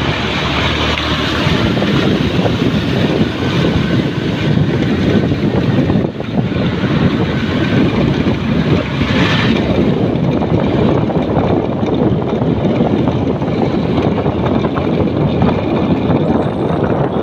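Motorcycle riding through a flooded road: the engine running under steady wind noise on the microphone, with water spray from the tyres, and a brief louder hiss about nine seconds in.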